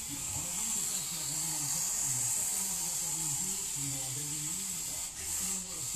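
Micro RC crawler's small electric motor and gearbox whining steadily as the truck drives.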